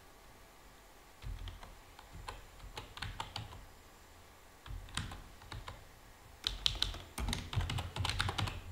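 Typing on a computer keyboard: three runs of keystrokes separated by short pauses, the last run the densest and loudest.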